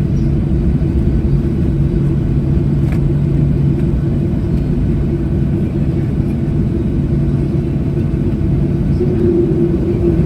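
Boeing 737-800's CFM56-7B jet engines running at taxi thrust, heard from inside the cabin beside the engine: a steady rumble with a low hum. The higher hum gets a little louder near the end.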